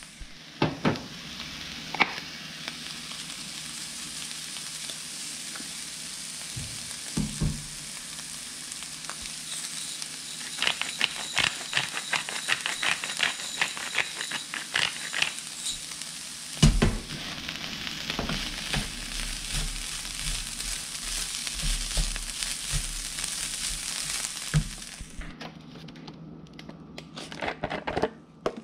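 Riced cauliflower and garlic sizzling in a frying pan while being stirred with a wooden spatula, with scattered scrapes and knocks. Midway a pepper grinder clicks rapidly for about five seconds. Near the end the sizzling stops and only a few handling knocks remain.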